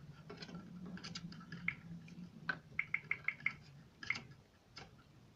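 Light clicks and taps from a smartphone being handled and operated by hand, including a quick run of five clicks at about six a second around the middle, over a faint low hum.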